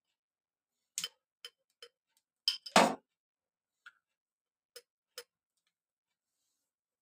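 Steel kitchen utensils clicking and clinking in a run of light taps, with one louder, fuller knock a little under three seconds in.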